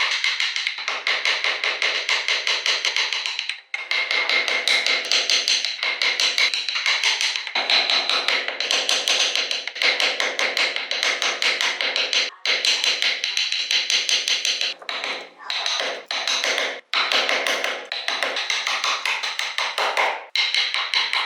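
Rapid, dense tapping of a tool striking wood during carving, with a steady high tone under it and a few brief breaks.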